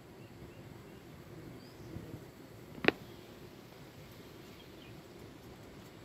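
A few faint, short chirps from jungle babblers over steady low background noise, with one sharp, brief click about three seconds in that is the loudest sound.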